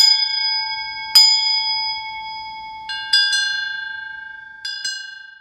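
Bright metallic chimes struck several times, some singly and some in quick runs of two or three, each note ringing on in a long fading tail at the same few high pitches. The chiming stops at the very end.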